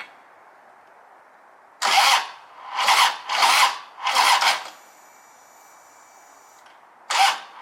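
A motorcycle's electric starter cranking in about five short bursts of half a second or less, with a pause of a couple of seconds in the middle, and the engine not catching. The battery is running too low to turn it over properly.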